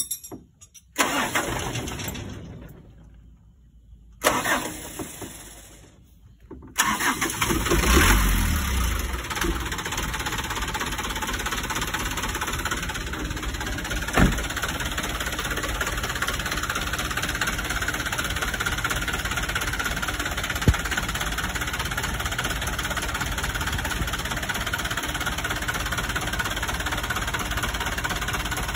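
Mitsubishi car engine being cranked in two separate attempts, catching about seven seconds in, briefly running up, then settling into a steady idle during a tune-up.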